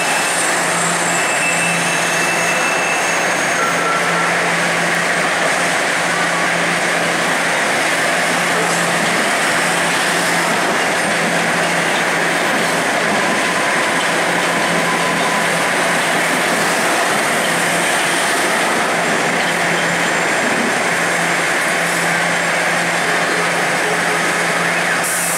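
Toronto Rocket subway trains running on the tracks: a steady rolling noise of wheels on rail, with a low hum that comes and goes.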